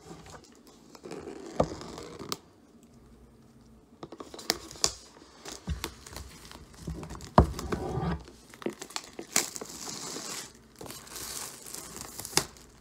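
Plastic shrink-wrap being torn and peeled off an iPad box, crinkling, with scattered clicks and taps of the box being handled. There is a sharp knock about seven seconds in, and a long stretch of crinkling near the end.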